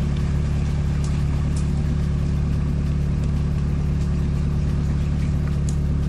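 An all-terrain vehicle's engine idling steadily, heard from inside its cab while the vehicle stands still.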